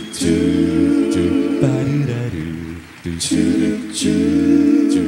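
A cappella vocal group singing held, harmonised chords with no clear words, in two long phrases with a short break about three seconds in.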